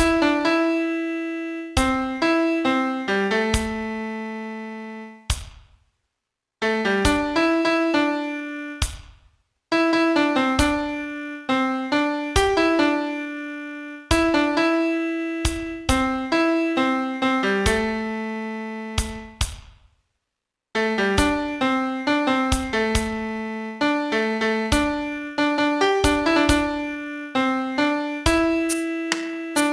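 Piano playing a slow song melody one note at a time, each note fading after it is struck, in phrases broken by short pauses.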